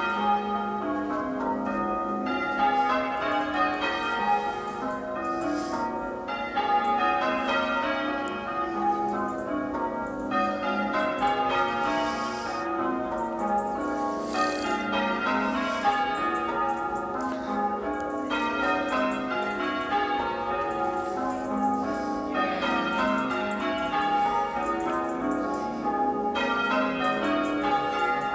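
Church tower bells being rung in changes for a peal: a steady, unbroken stream of strikes from the full ring, one bell after another, at an even rhythm.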